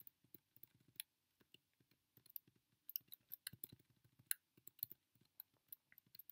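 Near silence broken by faint, irregular clicks of a computer mouse while a document is scrolled down, including a quick cluster of them about three seconds in.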